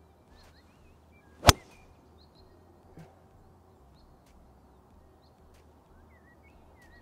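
A golf club striking a ball on a full swing: one sharp crack about one and a half seconds in. Small birds chirp faintly in the background.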